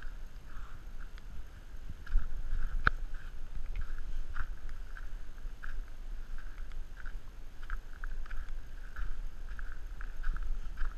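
Low, steady rumble of wind buffeting the microphone, louder from about two seconds in, with one sharp crack about three seconds in.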